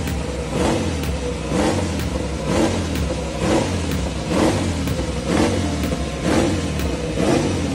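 Ducati Desmosedici GP23 MotoGP bike's V4 engine, warming up on stands with the throttle blipped about once a second, each rev rising and falling in pitch over a steady running note.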